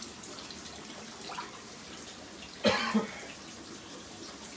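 A person gives a short double cough just past the middle, over a steady trickle of water from the running fish tanks.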